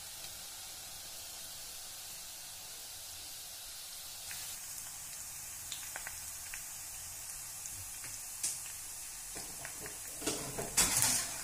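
Strands of gram-flour sev dough deep-frying in hot oil: a steady sizzle, with a few louder knocks near the end.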